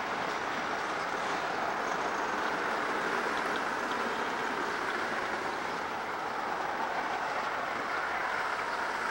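Freight train cars rolling past at close range, a tank car and a caboose at the rear of the train: a steady noise of steel wheels running on the rails.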